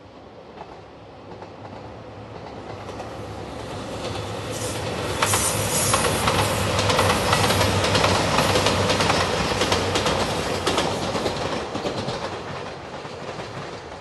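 JR Shikoku 2700 series diesel limited express train approaching and passing close by. Its engine drone grows louder and then fades, and at its loudest, around the middle, the wheels clatter over rail joints.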